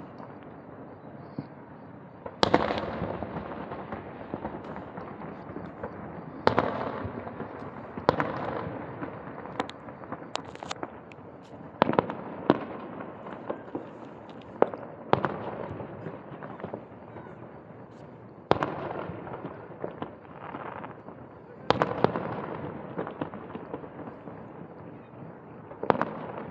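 Aerial fireworks shells bursting: about a dozen sharp booms at irregular intervals of one to four seconds, each followed by a rolling rumble of echo.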